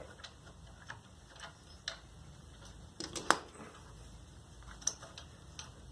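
Scattered light clicks and taps of a hand tool and metal parts while exhaust bolts are run in by hand on a scooter, with one sharper metallic click a little past three seconds in and another near five seconds.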